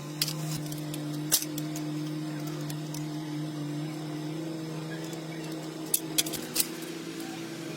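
A motor running steadily at one pitch, with a few sharp clicks: one near the start, one about a second and a half in, and three close together near the end.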